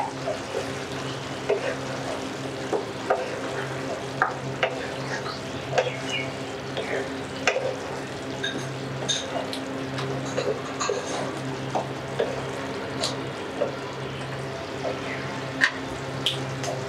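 Thick hog plum pickle sauce simmering in a non-stick wok, bubbling with soft pops while a wooden spatula stirs and scrapes through it, giving scattered small clicks. A steady low hum runs underneath.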